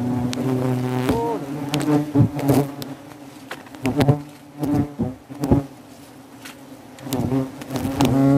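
Hornets buzzing loudly around the microphone, their pitch swooping up and down as they fly close past, while their nest is being dug out. Several sharp knocks break through the buzzing.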